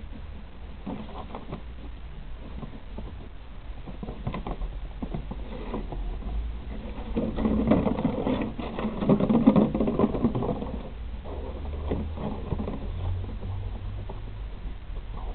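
Puppies biting and shoving an empty plastic jug across grass: a run of hollow plastic clicks and knocks, densest and loudest from about seven to ten and a half seconds in.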